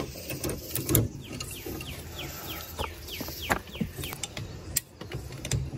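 Metal clicks, clinks and knocks as a body-pulling setup's chain and hooks are attached to pins on a car's quarter panel, with a run of short, falling high chirps about three or four a second in the middle.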